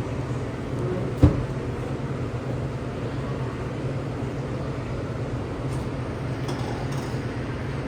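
Steady low machine hum with background noise, broken by one sharp knock a little over a second in.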